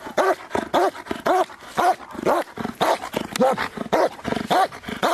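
Large dog barking repeatedly at a training bite sleeve, about two sharp barks a second without a break.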